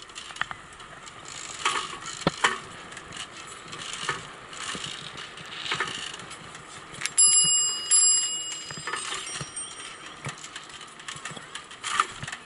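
Bicycle bell rung twice, about seven and eight seconds in, with bright ringing tones that hang on briefly. Underneath, a bicycle riding over pavement rattles and clicks.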